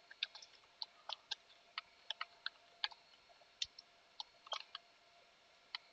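Computer keyboard keys being typed, faint irregular clicks a few per second.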